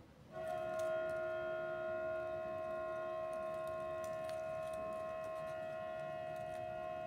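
A steady tone of several pitches sounding together, like a held chord, starting suddenly about a third of a second in and holding at an even level without fading or wavering.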